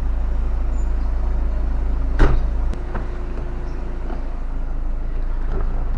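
Car engine idling steadily. A sharp knock comes about two seconds in, followed by a couple of lighter clicks.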